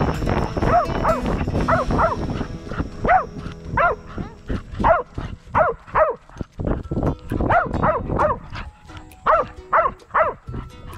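Staffordshire bull terrier puppy whining in a string of short high whines, each rising and falling in pitch, one or two a second with brief pauses.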